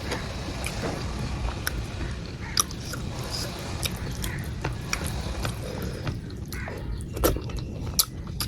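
Close-miked eating sounds: chewing a mouthful of rice, dal and vegetables, with scattered short sharp clicks and smacks over a steady low rumble.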